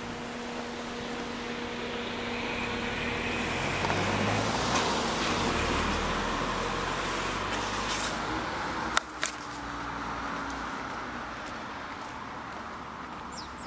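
Street traffic: a car passing, its tyre and engine noise rising and then fading over a few seconds. Two sharp clicks come about nine seconds in.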